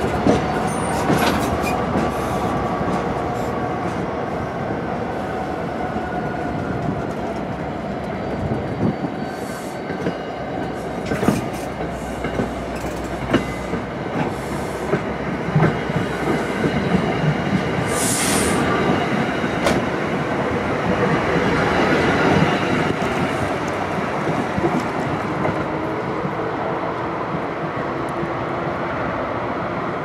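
NJ Transit Comet V passenger coaches rolling past close by, with a steady rumble, wheels clicking over the rail joints and some wheel squeal on the curve, as the train pulls away.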